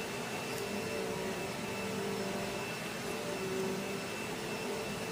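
Steady hum and hiss of background machinery, with a faint high whine above it.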